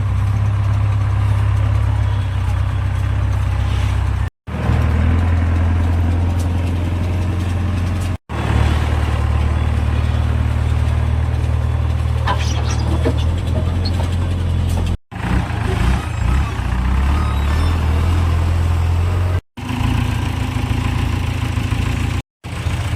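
Diesel engine of a JCB 3DX backhoe loader running steadily with a deep, even hum. It is cut by brief moments of total silence five times, where the recording is spliced.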